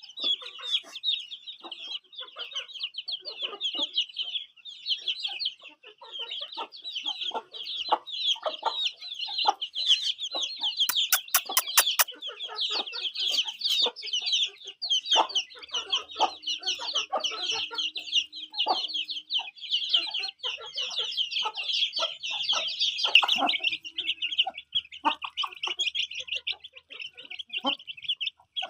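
Many chickens calling at once: a dense, continuous chorus of high, rapid peeping, with scattered knocks and clicks among it and a quick run of sharp clicks about eleven seconds in.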